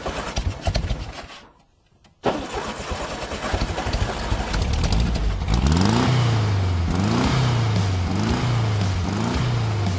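Car engine cranking, catching and revving, cutting out and starting again suddenly a little after two seconds, then running on under music that has a steady bass and a pitch sweep rising and falling about once a second.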